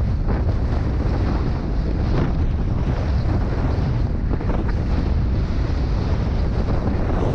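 Wind buffeting a GoPro Hero 5 Black's microphone in a snowstorm: a steady, heavy low rumble with short hissy swells now and then.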